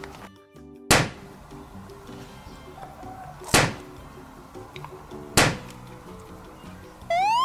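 Edited sound effects over faint background music: three sharp thunks a couple of seconds apart, then a loud rising cartoon boing near the end.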